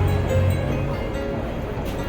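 Instrumental introduction of a slow Mandarin pop ballad, with held bass notes under sustained, steady tones.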